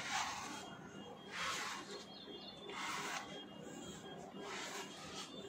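Slicker brush drawn repeatedly through a golden retriever's long coat: a soft hissing stroke about every one and a half seconds, four strokes in all.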